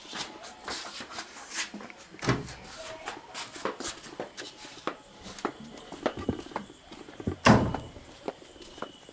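Irregular light clicks and taps from a plastic tub being handled, with a mouse trapped inside, and two heavier knocks about two seconds in and about seven and a half seconds in.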